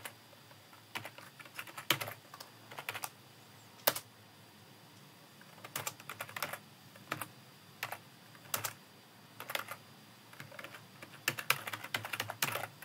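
Typing on a computer keyboard: irregular runs of keystrokes with short pauses between them, and a quicker run near the end.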